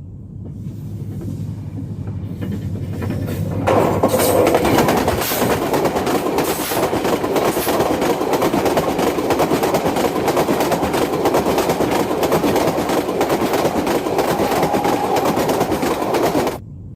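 Railway train passing close by, its wheels rattling and clattering steadily on the rails. A low hum runs under the first few seconds, then the clatter jumps louder about four seconds in and holds until it cuts off suddenly near the end.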